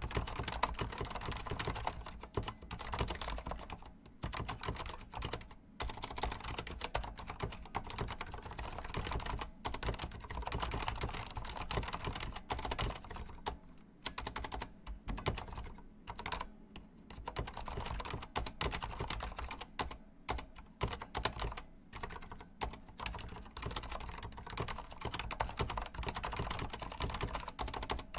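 Continuous fast typing on a Corsair Strafe mechanical keyboard with Cherry MX Silent switches: a dense run of keystroke clacks, broken by brief pauses every few seconds.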